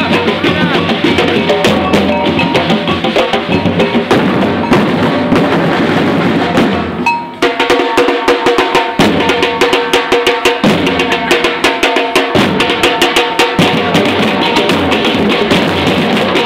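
Batucada drum ensemble playing a Brazilian samba-style rhythm on bass and snare drums with other percussion. The playing breaks off briefly about seven seconds in, then comes back in with sharp, evenly spaced strokes.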